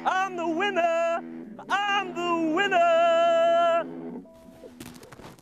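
Background music: a high sung voice holds long, wavering notes over a sustained chord. It ends about four seconds in, leaving faint outdoor sound with a few soft clicks.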